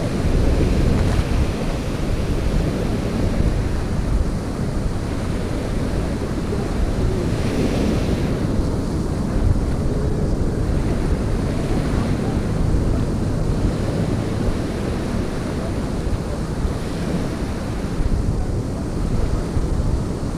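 Small waves washing up and draining back over a sandy beach, mixed with wind buffeting the microphone: a steady, deep rushing noise.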